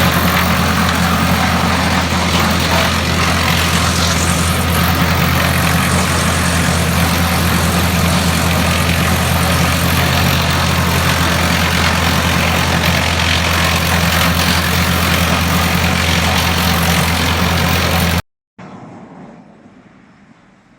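Tractor-driven PTO wood chipper running steadily: a loud, even engine-and-rotor hum with a rushing hiss over it. It cuts off abruptly about 18 seconds in, giving way to a much quieter sound that fades away.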